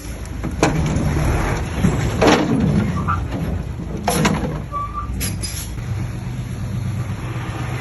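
Diesel engine of heavy earthmoving machinery running steadily, with four sharp metallic knocks or clanks spread through.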